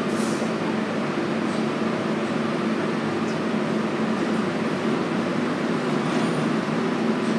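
Budd-built R32 subway train standing in the station with its doors open, its onboard equipment giving a steady hum.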